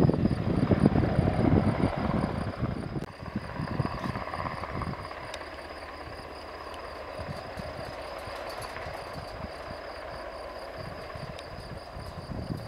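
Sikorsky S-70i Black Hawk helicopter's main rotor thudding loudly for the first few seconds, then fading to a steady distant hum as the helicopter moves away.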